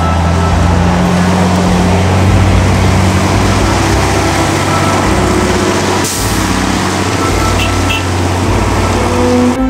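Bus engine running steadily with a low hum as the bus moves slowly over a dirt road, with a brief hiss about six seconds in.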